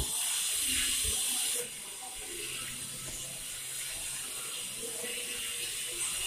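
A steady hiss like rushing air or running water, louder for the first second and a half and then lower, with a faint low hum underneath.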